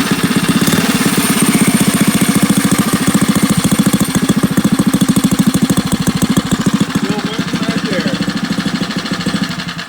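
80cc two-stroke motorized-bicycle engine idling with a fast, even putter, cutting off right at the end.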